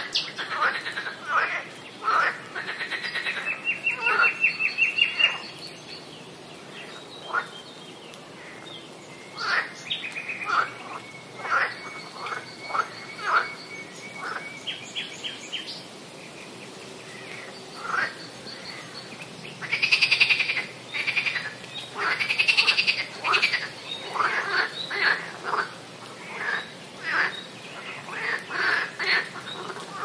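Summer swamp ambience of frogs and birds calling: a busy mix of short chirps and trills, with louder, longer rasping calls about two-thirds of the way through.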